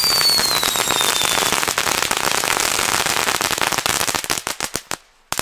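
A mass ignition of small ground fireworks: dense, rapid crackling with a whistle that falls in pitch over the first second and a half. The crackling thins into scattered pops after about four seconds, dies out briefly, then a few last pops sound at the end.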